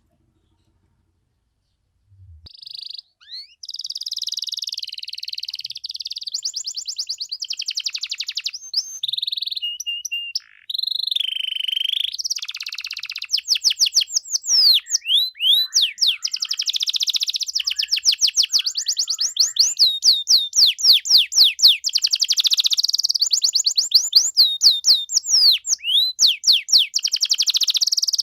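Domestic canary singing a long, unbroken song of fast rattling trills and rolls mixed with high sweeping whistled notes. The song starts about two seconds in, after a brief silence.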